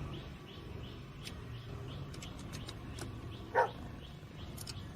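A single short dog bark about three and a half seconds in, over a low background hum and faint light ticks.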